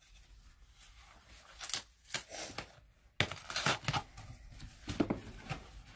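Paper packaging rustling and crinkling as a mailing envelope is opened and its contents handled, in irregular crackles that grow denser about three seconds in.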